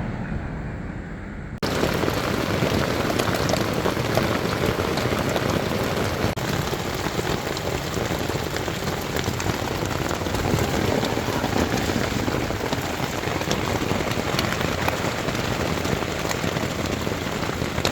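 Heavy rain falling steadily, a dense even hiss that starts abruptly about a second and a half in.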